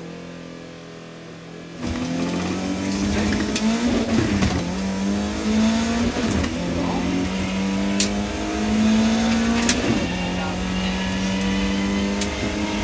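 BMW E30 318is rally car's four-cylinder engine, heard from inside the cabin: held at low revs, then about two seconds in it launches and pulls hard, the pitch climbing and dropping back at each of three upshifts. A couple of sharp knocks come from the car late on.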